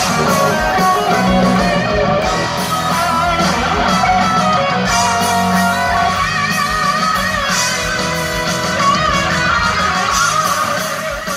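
Live hard rock band playing loud, electric guitars to the fore, heard from among the audience.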